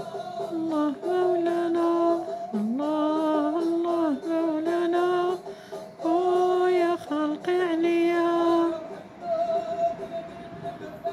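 Aissawa ritual music: a melodic line held in long notes that slide up and down, over frame drums with jingles struck in a dense, driving rhythm. The held melody drops away near the end, leaving mostly the drums.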